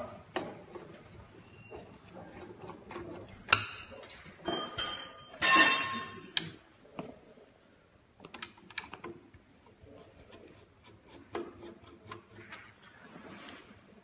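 Small metal screws and sheet-metal stove parts being handled, clinking and tapping: a sharp click about three and a half seconds in, a short run of ringing metallic clinks just after, then scattered faint ticks.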